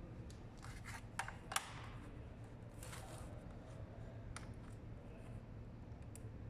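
A few scattered sharp clicks and a short scrape, like small objects being handled, over a steady low hum; the loudest click comes about one and a half seconds in.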